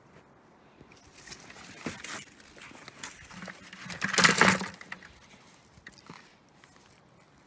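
Footsteps crunching through snow at an uneven pace, with a louder burst of crunching about four seconds in.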